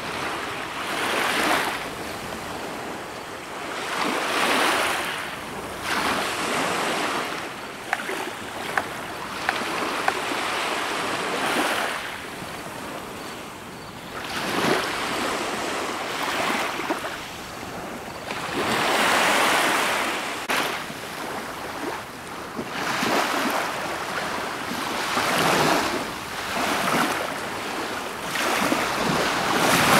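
Water splashing and washing around an inflatable boat as it is paddled, in surges every one to three seconds. A few sharp clicks come about eight to ten seconds in.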